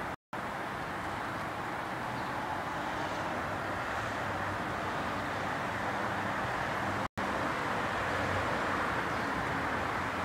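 Steady background noise with no distinct events, cut off completely for a split second twice, once right at the start and once about seven seconds in.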